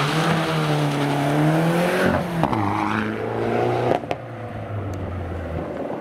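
Rally car engine accelerating hard away up the road. The revs climb, drop sharply at an upshift about two seconds in and climb again, then there is a short crack at a second shift near four seconds. After that the engine runs on more quietly as the car pulls away.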